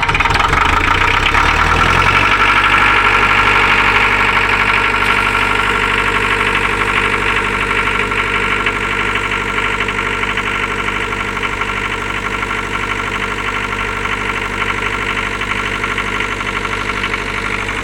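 Four-cylinder Coventry diesel engine of a 13.8 kVA three-phase generator set, running. Its note shifts in the first two seconds, then holds steady.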